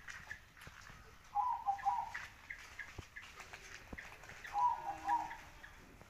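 A dove cooing twice, about three seconds apart: each call is a short phrase of a few quick stepped notes.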